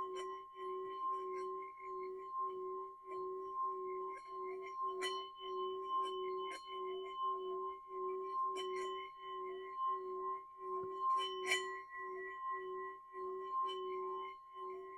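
Metal singing bowl rubbed around its rim with a wooden stick, singing a steady two-note tone that pulses a little under twice a second as the stick circles. A few sharp clicks come through as the stick chatters against the rim.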